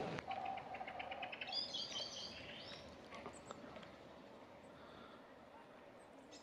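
Small birds calling faintly: a quick even series of ticks, then a brief cluster of high chirps about two seconds in.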